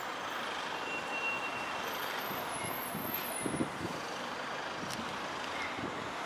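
Steady city street traffic noise, with vehicles running in the background.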